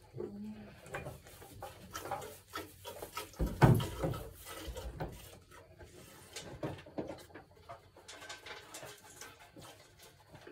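Hand-milking a goat: irregular short squirts and rustles as milk is stripped from the udder into a metal pail, with one heavy thump about three and a half seconds in.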